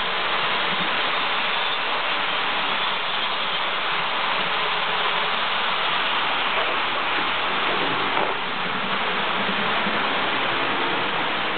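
Model trains running on the layout: a steady rushing whirr of wheels rolling over the track and small motors, with no break.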